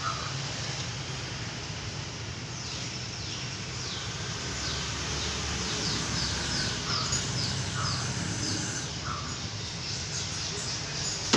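Crows cawing, with a run of short, high, falling chirps through the middle and a low steady background hum. A sharp knock comes right at the end.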